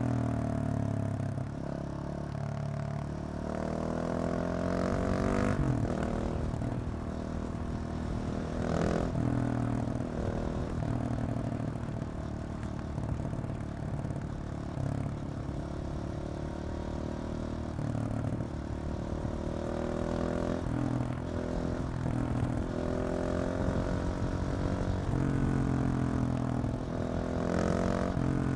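KTM 690 SMC R's single-cylinder engine through a decat LeoVince exhaust, pulling hard and shifting again and again: the pitch sweeps up, drops at each gear change or lift of the throttle, and climbs again.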